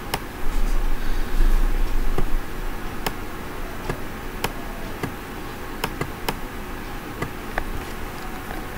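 Computer mouse clicking: single sharp clicks about a second or so apart, over a steady background hiss and hum. A low rumble is heard in the first two seconds.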